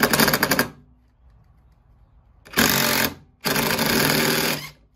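DeWalt Atomic 20V cordless impact driver hammering as it backs screws out of a scrap-wood block, in three bursts of rapid rattling. The first burst ends just under a second in, and two more follow after a pause, the last lasting over a second.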